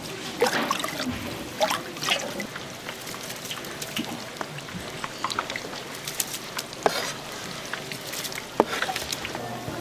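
Liquid pouring and trickling, with scattered sharp clicks and knocks of utensils.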